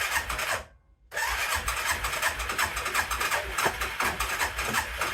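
2007 Arctic Cat H1 650 ATV's single-cylinder engine being started: a short first burst, a brief pause, then it catches about a second in and settles into a steady idle. At idle it still has a clicking, which the owner traces to the carburetor and is trying to tune out with the air screw and idle setting.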